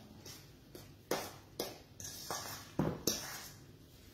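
A spoon stirring a thick, chunky dip in a stainless steel mixing bowl: a handful of irregular scrapes and knocks against the metal.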